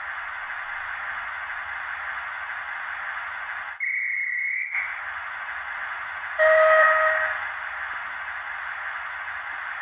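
Sound-fitted model Rebuilt Merchant Navy steam locomotive standing with its steam hissing through a small speaker. A short high-pitched whistle sounds about four seconds in, then a lower, louder whistle about six and a half seconds in.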